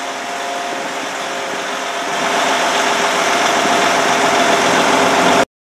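Diesel multiple unit's underfloor engines running steadily while standing at the platform, with a held whine, growing louder about two seconds in. The sound cuts off abruptly near the end.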